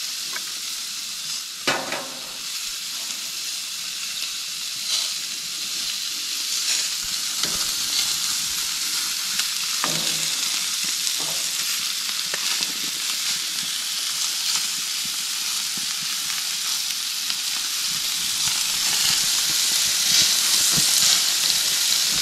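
Porterhouse steaks sizzling on the grate of a hot gas grill, a steady hiss that swells a little toward the end. A few light clicks and knocks are heard over it, about two seconds in and again around five and ten seconds in.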